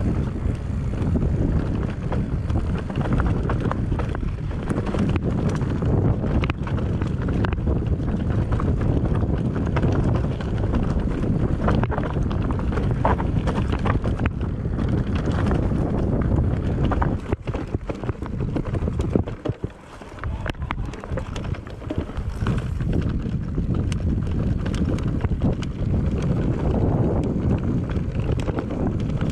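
Wind buffeting the camera microphone during a ride over a rough trail, with frequent knocks and rattles from the bumps. It eases off briefly about eighteen seconds in, then picks up again.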